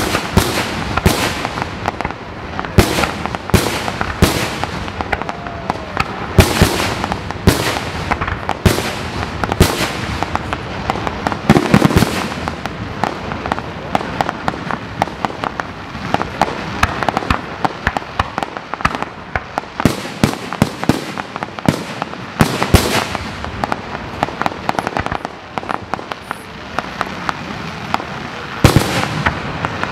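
Aerial fireworks shells bursting in quick succession: many sharp bangs, often several a second, over a continuous crackle.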